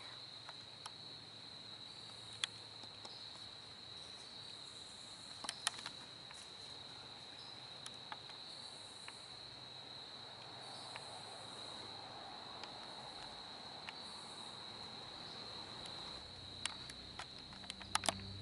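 Faint, steady chorus of crickets trilling in the woods, broken by a few scattered sharp clicks, with several of them close together near the end.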